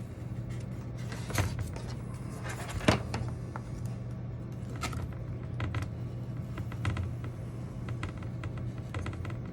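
Steady low hum with scattered clicks and knocks as foam scenery pieces and tools are handled on a model railway layout during foam cutting; the sharpest knock comes about three seconds in.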